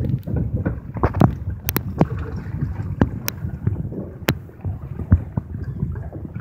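Choppy river water slapping and lapping against a dock, with sharp irregular splashes, under a steady rumble of wind buffeting the microphone.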